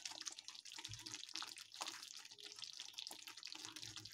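Thick yogurt and gram-flour (besan) curry simmering in a kadhai, its bubbles popping in faint, irregular little blips.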